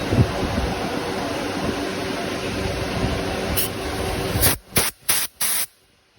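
Pressurised spray hissing steadily, then four short bursts before it stops.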